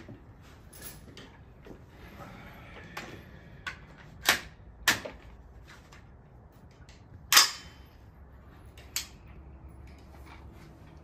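Five sharp gunshot-like bangs at uneven intervals, the loudest about seven seconds in, with lighter metallic clicks between them as an AR-15 rifle is handled to clear a jammed empty casing.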